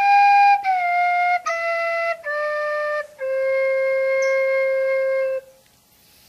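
Flute playing a scale downward, four short notes stepping down and ending on a long held lowest note that stops cleanly near the end. It is the low end of the instrument's full scale, played to demonstrate high, middle and low sounds.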